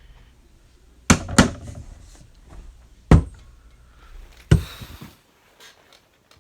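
Heavy bangs from an upstairs neighbour's floor, four in all: two in quick succession about a second in, one near the middle and one more about a second and a half later.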